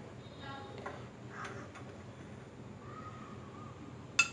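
Quiet kitchen sounds of a spoon working sattu flour in a glass of water, with one sharp clink of the spoon against the glass near the end.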